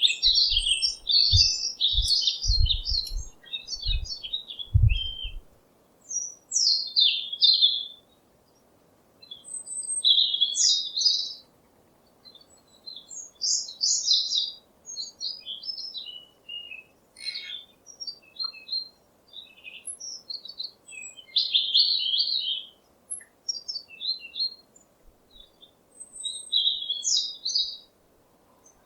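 Small songbirds chirping and twittering in quick high phrases, with short pauses between them. A few low thuds come in the first five seconds.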